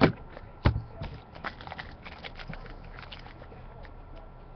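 Two sharp knocks, then crackling and rustling as a foil trading-card pack is torn open and the cards inside are handled.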